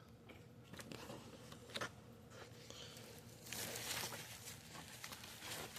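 Faint rustling and a few light clicks as a calendar and its packaging are handled, the rustling growing louder about three and a half seconds in.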